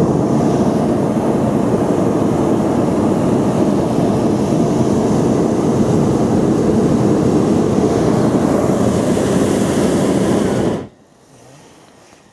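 Hot-air balloon's propane burner firing in one long blast, a steady loud roar that cuts off suddenly near the end.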